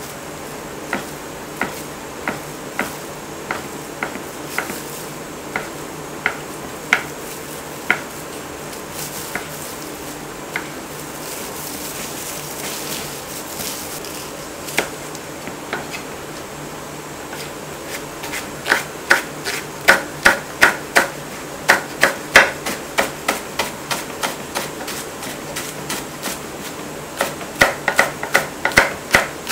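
Kitchen knife chopping on a wooden cutting board, slicing fish cake and then onion. It starts as single knocks spaced about half a second apart. In the second half come faster, louder runs of quick chops, about four or five a second.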